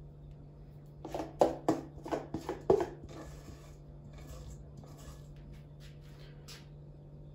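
Metal spoon clinking and scraping on a dish while glazing: a quick run of about seven sharp clicks about a second in, then a few seconds of quieter scraping, over a steady low hum.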